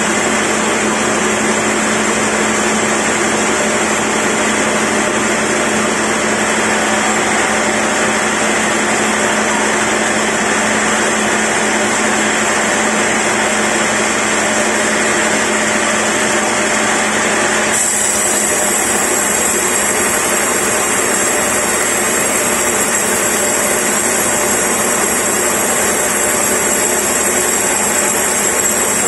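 Log band saw running steadily while its vertical band blade rips lengthwise through a large log on the carriage: a loud, constant machine noise with a low hum. The sound changes abruptly about two-thirds of the way through.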